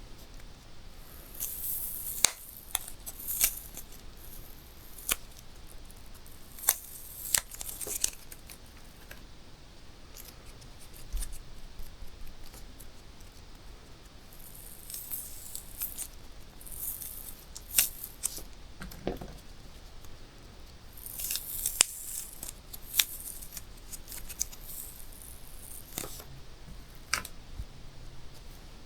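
Balloons popping one after another at uneven intervals: soft, sharp pops with some louder ones, and bursts of rubbery rustle and hiss between them.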